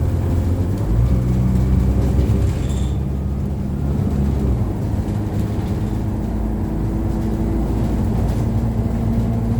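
ADL Enviro200 single-deck bus heard from inside the saloon, its engine and drivetrain running steadily. The engine note steps up about a second in, drops back after about four and a half seconds, then holds steady.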